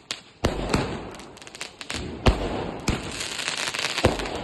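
Multi-shot firework cake firing: loud bangs every second or two with crackling bursts in between.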